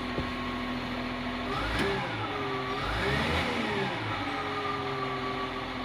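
Caterpillar 950H wheel loader diesel engine running, at first at a steady idle, then revved up and down twice about a second and a half in before holding at a higher steady speed. It is being tested for unstable, misfire-like running that the mechanics trace to a faulty sensor.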